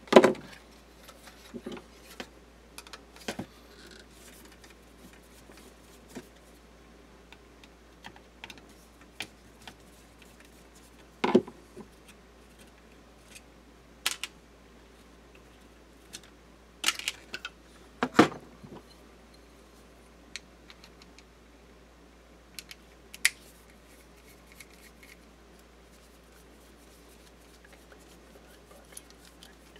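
Scattered clicks, snips and knocks of hand tools and a power-supply circuit board being handled on a bench mat: flush cutters snipping, the board knocked and set down, a screwdriver at work. The loudest knocks come right at the start, about eleven seconds in, and twice around seventeen to eighteen seconds in.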